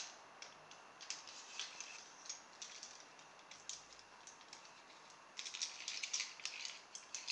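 Faint small plastic clicks and rattles as a toy train's plastic locomotive and battery tender are handled and fitted together, the clicking getting busier about two thirds of the way through.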